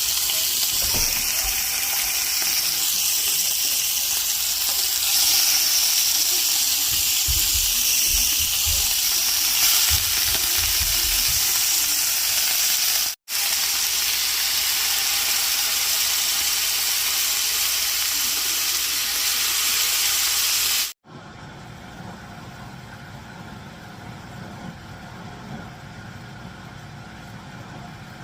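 Chicken skewers sizzling in a hot pan, a loud steady hiss. It breaks off briefly about 13 seconds in and stops sharply about 21 seconds in, leaving a much quieter low hum.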